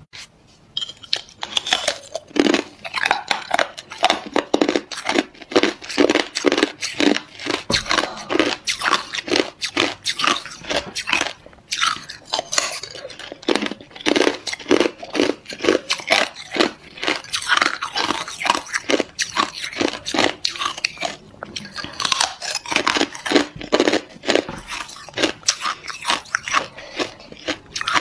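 Hard ice being bitten and chewed: fast, irregular crunching and cracking of frozen ice between the teeth, almost without pause.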